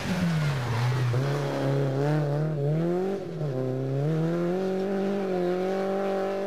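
Rally car engine under hard acceleration on a stage: the pitch falls briefly, climbs, drops sharply about three seconds in, then climbs again and holds high.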